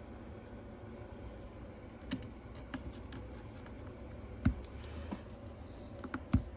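Scattered light clicks and taps of small repair tools and parts being handled on an iPad Pro during reassembly, with one sharper tap a little past the middle, over a steady low hum.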